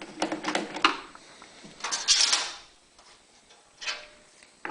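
Screwdriver and screws being handled while unscrewing the Phillips screws of a generator's end cover: several sharp clicks and knocks, then a short rattle about two seconds in and a small knock near the end.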